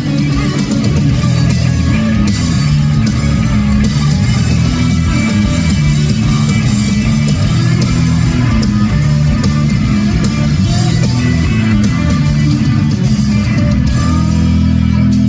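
Live rock band playing an instrumental passage, guitars to the fore over bass and drums, heard loud through the arena's sound system.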